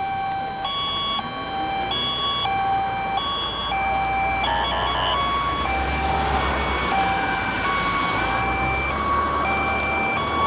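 Electronic two-tone alarm switching steadily between a low and a high pitch about every half second, over traffic noise, with a low engine rumble from about four seconds in.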